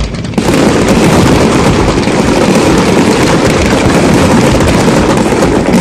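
A fireworks barrage: shells bursting so rapidly that they merge into one loud, continuous rumble, setting in suddenly about half a second in.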